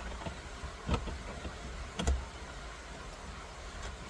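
Two short knocks about a second apart, from steering-wheel hardware being handled as the nut comes off the steering shaft, over a steady low hum.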